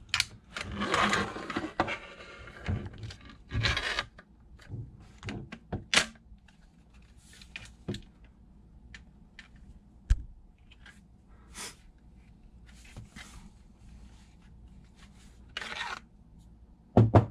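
Plastic parts of a 3D-printed airsoft folding gun being unfolded and taken apart by hand: a long scraping rub of plastic on plastic early on, then scattered clicks and knocks, the loudest a knock near the end.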